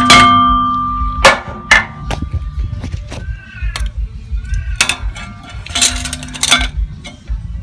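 Hammer striking a stainless steel strip clamped in a bench vise to bend it, each blow clanging and ringing with a metallic tone. Several separate strikes, then a quick flurry of ringing blows near the end.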